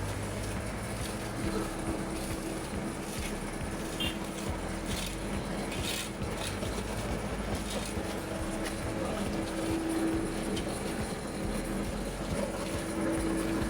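A steady engine running under an even rumbling noise, with a few brief clicks.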